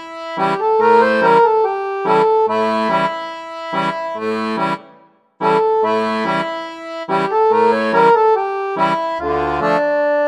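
Instrumental intro music: a lively repeating pattern of chords and melody notes, with a brief silent break about five seconds in.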